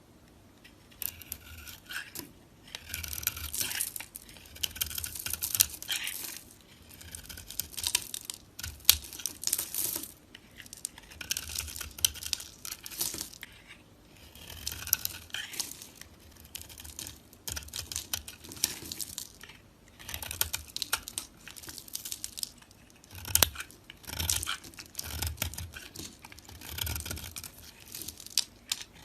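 Knife cutting through dry soap, crunching and crackling in repeated strokes of a second or two with short pauses between.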